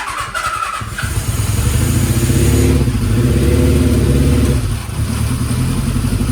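Kawasaki Z1's air-cooled 903 cc inline-four engine being started: about a second of starter cranking with a thin whine, then the engine catches and runs, held higher for a couple of seconds before dropping back to a steady run. The engine has a loud abnormal noise.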